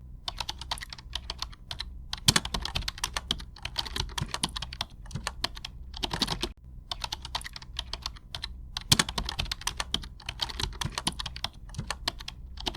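Rapid, irregular clicking of keys being typed on a keyboard, starting and stopping abruptly, with a brief break about six and a half seconds in.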